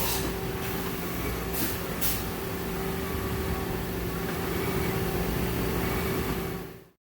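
A 1999 Mazak VTC-16A CNC vertical mill running under power: a steady machine hum with a few held tones, broken by short hisses about one and a half and two seconds in. The sound fades out just before the end.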